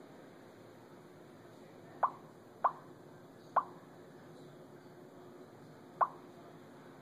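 Crestron touch-screen room control panel beeping as its on-screen drape and sheer buttons are pressed: four short, sharp blips, three within about a second and a half from two seconds in and a fourth near the end.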